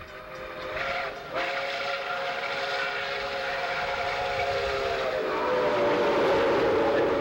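Steam whistle of Chesapeake and Ohio 2765, a 2-8-4 Berkshire steam locomotive, blowing a long chord with one short break about a second in. A little after five seconds in the chord drops in pitch as the locomotive passes close, and the rush of the passing engine grows louder.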